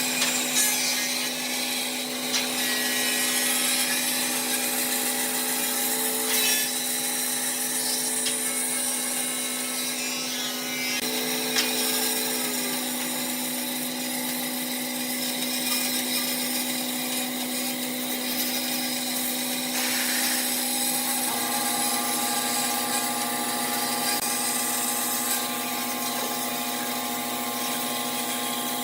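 Electric power tool running steadily while working wood, with a steady motor hum whose tone shifts slightly about two-thirds of the way through.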